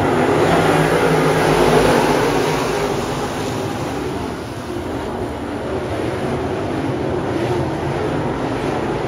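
A full field of dirt late model race cars accelerating at the green flag, many V8 engines at full throttle together. The sound is loudest about two seconds in, then eases a little as the pack moves away around the track.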